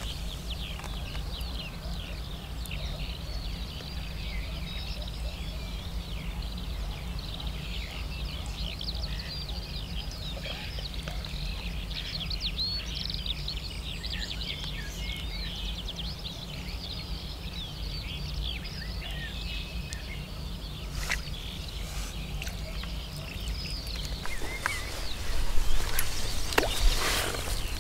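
Birds singing, a dense run of short high chirps, over a steady low rumble. A few louder knocks and rustles come near the end.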